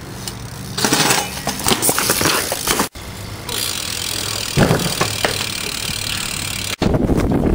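BMX bike rattling as it is ridden on concrete, then a hard thump about four and a half seconds in as the rider crashes into the side of a parked minivan.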